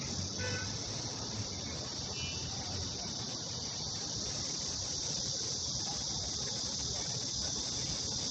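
A steady, high-pitched drone of insects, over the low rumble of passing street traffic.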